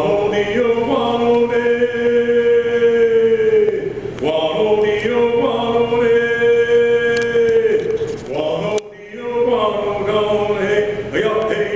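A man's voice chanting a blessing song in long held notes, three phrases of a few seconds each, the pitch sliding down at the end of each phrase.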